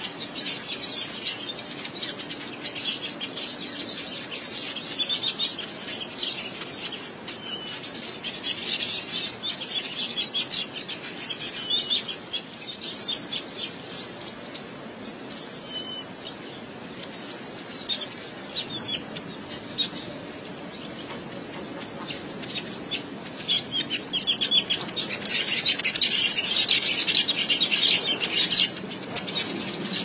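Weaver birds chattering with rapid, dense calls, louder near the end.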